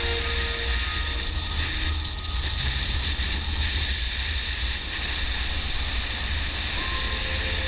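Motorcycle running at a steady cruising speed: a low, even engine rumble under a steady rush of wind and tyre noise.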